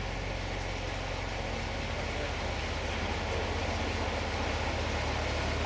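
Engine of a moored lake cruise boat idling: a steady low rumble with a fast, even beat, growing slightly louder.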